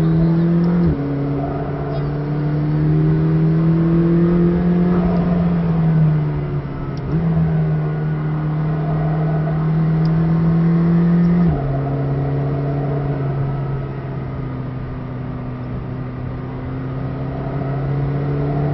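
McLaren 620R's twin-turbo V8, heard from inside the cabin, pulling through the gears under load. The engine note climbs steadily between shifts and drops in pitch at upshifts about a second in and about two-thirds of the way through. Around six seconds in it falls away briefly and then steps back up, as on a lift and downshift.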